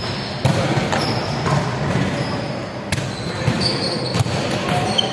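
Volleyball being struck and bouncing on a wooden sports-hall floor: several sharp smacks, the first about half a second in, echoing in a large hall.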